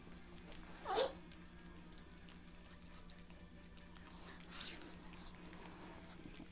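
Small dogs playing on a bed: one short snort about a second in and a fainter, hissing huff about four and a half seconds in, over a low steady hum.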